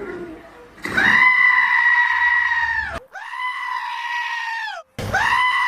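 Goat screaming, a long cry at a steady high pitch, three times over, each lasting about two seconds.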